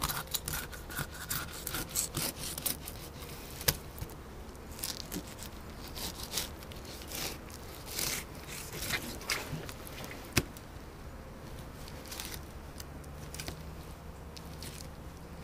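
Fillet knife cutting and scraping through small panfish on a plastic cutting board, working the skin off the fillets: irregular scrapes and rubs, with a couple of sharper clicks of the blade against the board.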